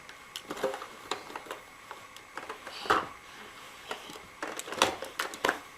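Irregular light clicks and taps in a small room, with a few louder knocks about three seconds in and again near five seconds.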